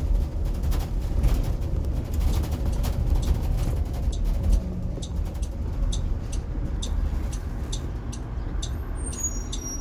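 Cabin of a Blue Bird electric school bus on the move: a steady low drive and road rumble with an irregular rattle of sharp clicks. The rattle comes from loose wiring in the sealed-off bulkhead. A few short high chirps sound near the end.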